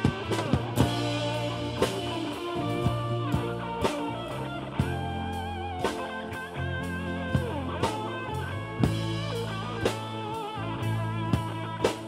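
Rock band playing: electric guitar with bent, wavering notes over bass and a steady drum-kit beat.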